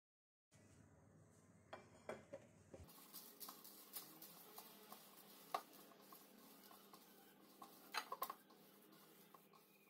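Very faint kitchen handling sounds: soft taps and clicks of hands patting dough on a baking tray and then working food in a plastic bowl, with a few sharper clicks, the loudest about five and a half and eight seconds in.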